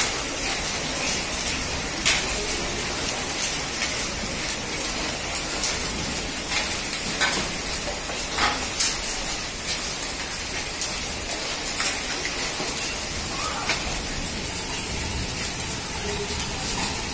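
Heavy rain with hail: a steady hiss of rain on wet paving, broken by irregular sharp clicks and knocks of hailstones hitting the ground.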